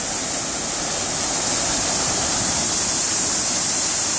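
Rough sea surf surging in and breaking over concrete tetrapods on a breakwater: a steady rush of churning water and spray that grows louder about a second in.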